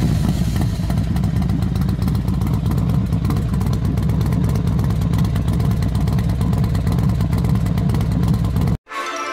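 An engine running steadily with a deep, low, fast-pulsing rumble, cutting off abruptly near the end.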